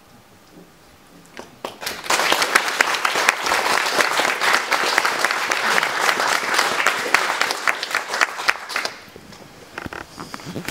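Audience applauding: a burst of clapping starts about two seconds in, holds steady for about seven seconds, then dies away to a few scattered claps near the end.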